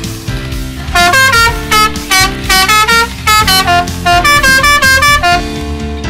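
A quick tune of short, loud horn-like notes, stepping up and down in pitch, from about a second in until near the end, over steady background music.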